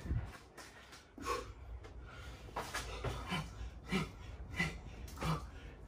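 A man breathing hard from the exertion of burpees with push-ups: short, forceful breaths and gasps about once a second or a little faster, some of them voiced.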